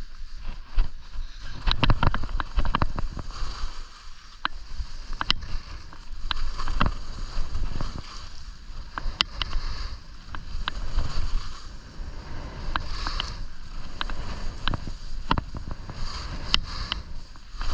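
Skis scraping and carving over firm snow, with wind rushing on the microphone and frequent sharp clicks and knocks.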